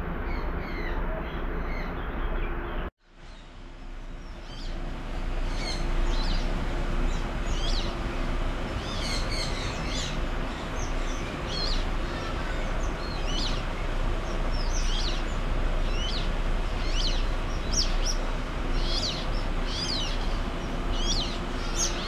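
Aviary birds chirping: short, high, downward-sweeping chirps repeat about once or twice a second over a steady background hiss. The sound cuts out briefly about three seconds in.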